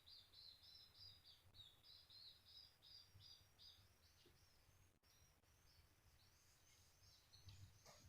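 Swiftlet twittering: quick runs of short, high chirps that thin out about four seconds in, then pick up again slightly higher, over a faint low hum.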